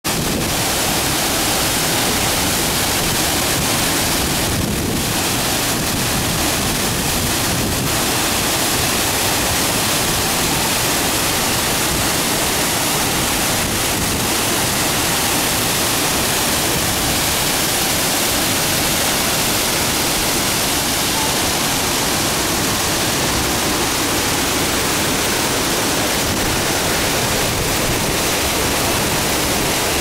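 Waterfall plunging into its pool: a steady, loud rush of falling water that stays even throughout.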